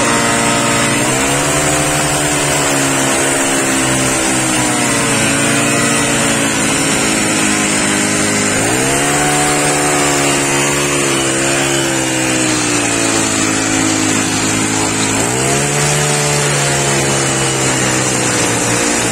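Small petrol engine of a handheld railway ballast tamping (packing) machine, revving up to full speed three times, about a second, nine seconds and fifteen seconds in, and easing back toward idle in between as its tine packs ballast under a sleeper.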